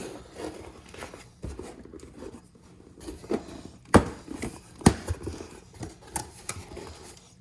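Cardboard box and its packaging being handled, with rustling and a few sharp knocks; the two loudest knocks come about four and five seconds in.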